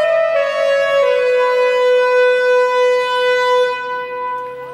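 The Great American Horn Machine's horns sounding long held chords, the notes shifting about a second in, then fading out near the end.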